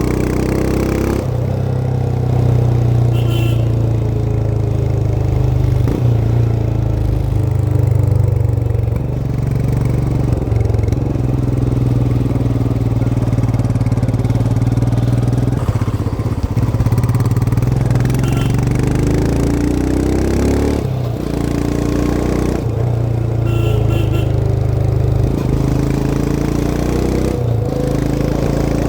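Royal Enfield Himalayan 411's air-cooled single-cylinder engine pulling on the move, its revs climbing and then dropping at each of several gear changes.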